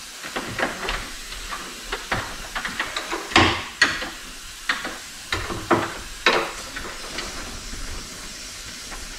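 Compressed air hissing out in short spurts from a still-pressurised air line fitting on the back of a bus dash air gauge as it is loosened with a wrench, among clicks and knocks of the wrench. The strongest spurt comes about a third of the way in, and a faint steady hiss follows near the end. The air system still holds pressure.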